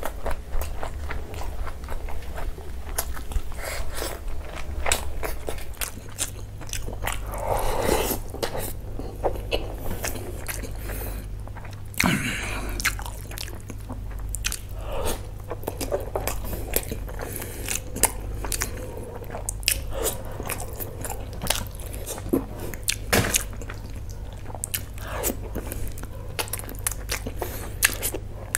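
Close-miked eating sounds: chewing and biting of curry and rice eaten by hand, with many short sharp mouth clicks throughout.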